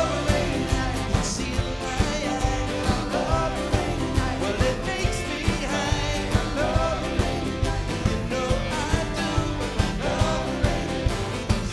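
Band performing a '70s-style rock song: sung vocals over a steady drum beat and bass.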